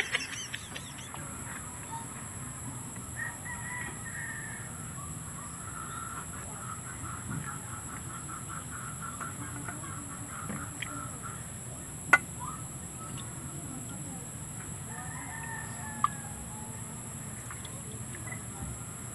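Birds calling in the background: a run of quick repeated notes through the middle and a longer call near the end. Twice a sharp clink of a serving utensil against the aluminium pot, the second a few seconds after the first.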